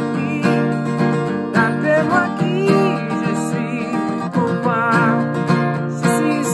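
Acoustic guitar with a capo strummed in a steady rhythm, with a man singing along over the chords.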